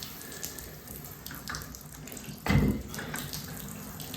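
Bathtub faucet running water in a steady stream, with one short thump about two and a half seconds in.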